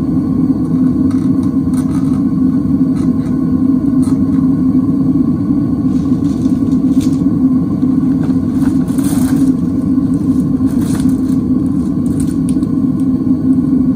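DevilForge melting furnace firing while melting aluminum: its burner gives a steady, loud rumble that does not change, with a few faint crackles.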